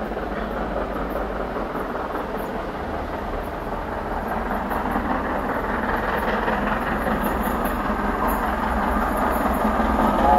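BR Standard Class 7MT 4-6-2 steam locomotive 70000 'Britannia' approaching with its train, a steady rumbling train noise that grows slowly louder as it comes closer.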